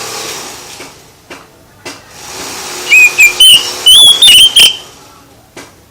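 A songbird's loud whistled song phrase: a quick string of clear whistled notes, some sliding up or down, coming about three seconds in and lasting under two seconds. Before it, a hiss fades out and a few soft clicks sound.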